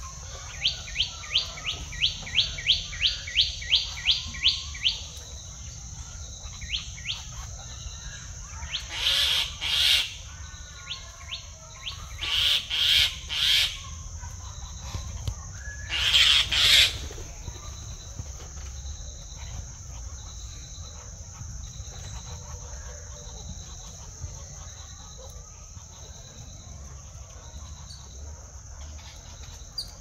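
A bird calling a fast run of about fourteen descending notes, roughly three a second, over a steady high insect drone. Three short, noisy rushing bursts come later.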